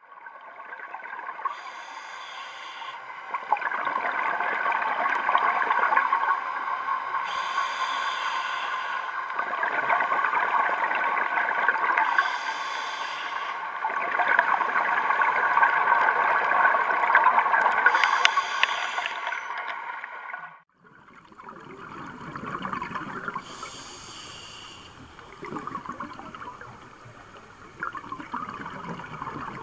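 Scuba diver breathing through a regulator, heard underwater: a short hiss on each inhale, then a longer rush of exhaled bubbles, repeating about every five to six seconds. The sound cuts out briefly about two-thirds of the way through, then the breathing and bubbles go on quieter.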